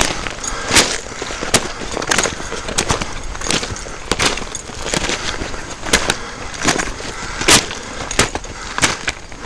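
Footsteps crunching and clattering over loose, freshly blasted rock, an uneven step about every half to one second.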